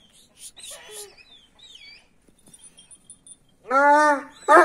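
Small birds chirping faintly, then a Kangal (Anatolian shepherd dog) barks loudly about three and a half seconds in and starts another bark right at the end, agitated.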